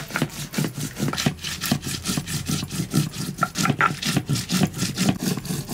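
Stone roller of a shil-nora (sil-batta) being pushed back and forth over a pitted stone grinding slab, crushing green and dried red chillies into a paste: a fast, even run of gritty stone-on-stone scraping strokes.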